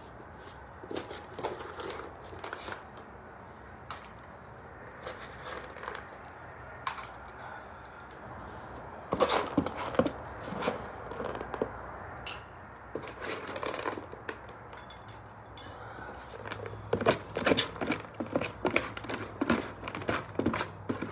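A bag being handled, crinkling and rustling with light clicks and knocks, in bursts about nine seconds in and again from about seventeen seconds on.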